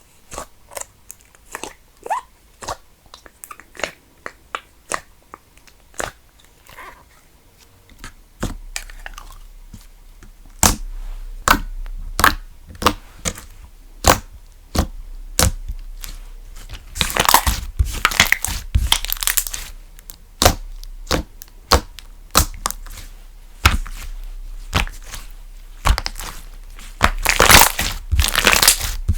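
Textured slime being poked, pressed and squished by hand, giving a run of sharp clicking pops. From about eight seconds in it is worked harder, with longer crackly squishing stretches; the loudest come a little past halfway and near the end.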